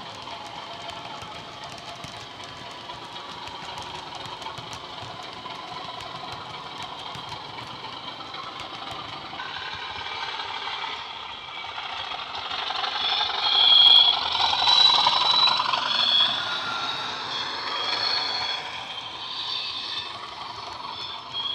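Sound decoder in a Bachmann OO-gauge Class 37 model locomotive playing its diesel engine sound through an upgraded double iPhone speaker, mixed with the running noise of the model train on the track. It grows louder as the train comes round close by, loudest about two-thirds of the way in, with high tones on top, then eases off.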